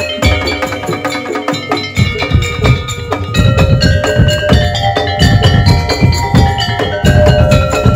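Daul Madura percussion ensemble playing a fast, dense rhythm: wooden slit drums (kentongan) and bass drums under a melody on tuned metal percussion. The low drums come in heavier about two seconds in.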